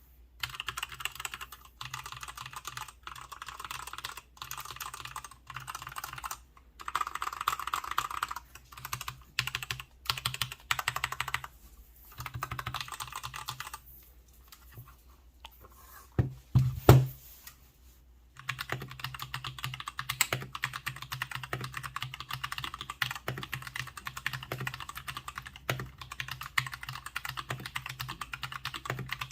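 Mstone Rookie 68BT mechanical keyboard being typed on quickly, a fast run of key clacks. The typing pauses for a few seconds near the middle, with a louder knock just before it picks up again.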